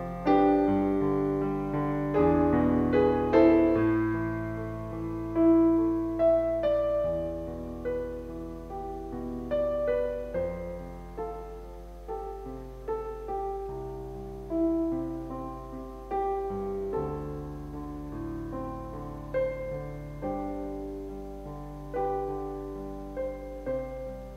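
Piano music for reflection: chords and melody notes struck and left to ring, each fading after its attack.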